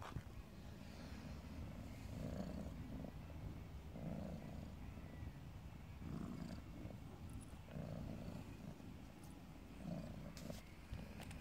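Tabby cat purring while being stroked, a low rumble that swells and fades with each breath, about once every two seconds.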